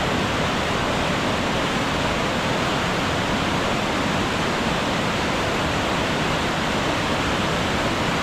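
Mountain waterfall: water pouring steadily down among rocks in a dense, unbroken rush.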